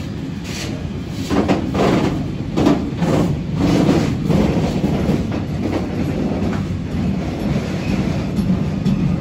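Freight train rolling past on the near track: a steady rumble of wagon wheels on the rails, with a quick run of wheel clacks in the first half.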